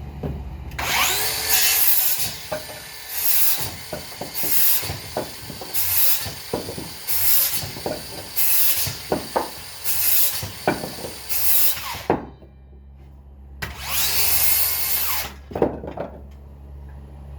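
DeWalt DCS577 60V FlexVolt 7-1/4-inch cordless rear-handle circular saw cutting wood in a run of about ten short passes roughly a second apart. After a short pause comes one longer cut.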